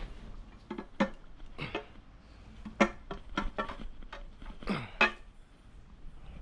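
Metal engine parts and tools clinking and knocking during an engine teardown: a dozen or so irregular sharp clinks, each with a short ring.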